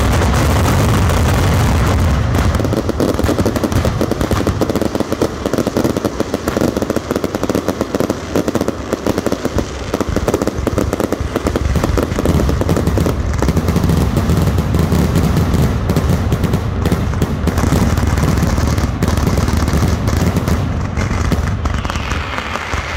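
Valencian mascletà firecrackers going off in a dense, unbroken barrage of rapid bangs, with aerial shells bursting overhead; the barrage eases briefly just before the end.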